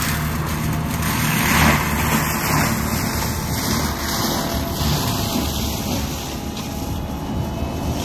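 Kubota compact track loader's diesel engine running steadily under load, driving a Denis Cimaf forestry mulcher head through palmetto scrub.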